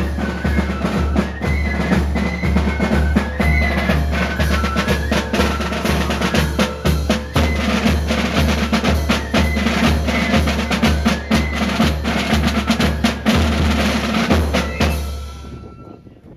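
Marching drum band playing: bass drums keep a steady march beat about twice a second under snare drum rolls, with a high melody line on top. The music stops about fifteen seconds in.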